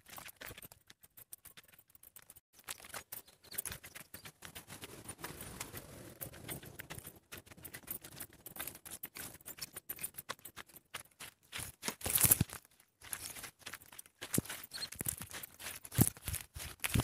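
Footsteps walking along a dirt path strewn with dry straw, with crunching and rustling of dry stalks and grass underfoot. A few louder knocks and scuffs stand out about twelve seconds in and again near the end.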